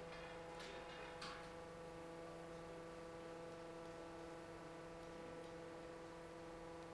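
Faint steady electrical hum, with two faint ticks about half a second and a second in.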